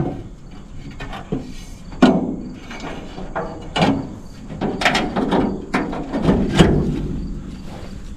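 Rusty hood of a 1966 Ford F350 being worked up and propped open: a string of creaks from the hood and its hinges, with half a dozen sharp metal knocks and clanks from the metal pole bracing it.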